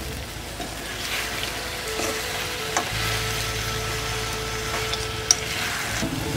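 Chicken pieces, cashews and dried chillies sizzling in a metal wok as they are stir-fried with a wooden spatula, with a steady hiss and a few scrapes and taps of the spatula against the pan; the loudest is a sharp tap about five seconds in.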